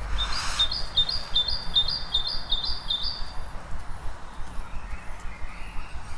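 A songbird singing a dawn-chorus song: one two-note phrase repeated about eight times at a quick, even pace, then breaking off, over a steady low rumble of town background noise.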